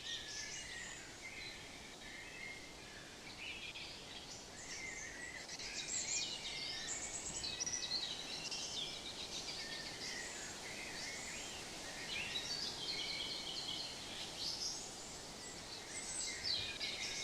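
Several songbirds singing and chirping at once, their overlapping songs and trills continuing without pause over a steady background hiss.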